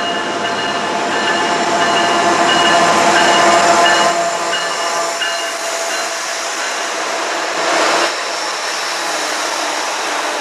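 Two CN diesel locomotives at the head of a freight train pass close by, their engines running, loudest about three to four seconds in. The freight cars then roll past on the rails, with a brief louder burst about eight seconds in.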